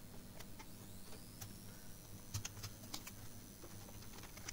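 Faint scattered clicks and crackles of thin plastic insulating sheets being peeled off the back of a laptop keyboard's metal plate and handled.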